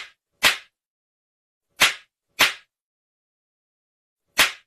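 A series of sharp slap-like cracks, five in all at uneven spacing: two half a second apart, a pair about a second later, and a last one near the end, with dead silence between.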